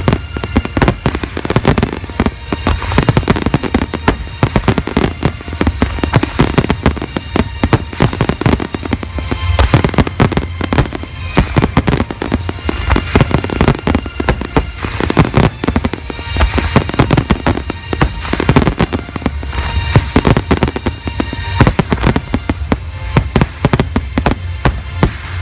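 Dense, rapid volley of aerial firework bursts, many loud bangs a second without let-up, with music playing behind.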